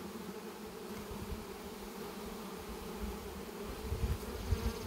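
Honey bees buzzing around an opened hive, a steady many-voiced hum, with a few low thumps near the end.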